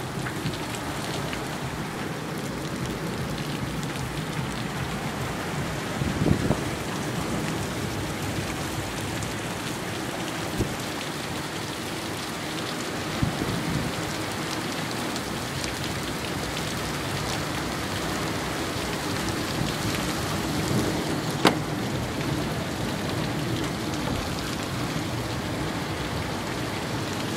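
Rainstorm: heavy rain pouring down steadily, with a few sharp clicks of drops or splashes hitting nearby.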